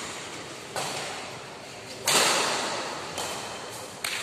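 Badminton rackets striking the shuttlecock in a rally: sharp cracks roughly a second apart, the loudest about two seconds in, each ringing on in the echo of a large sports hall.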